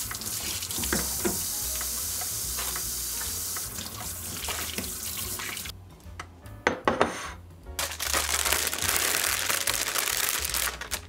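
Kitchen tap running into a stainless steel sink, a steady hiss that stops for about two seconds partway through, with a few knocks in the gap, then runs again.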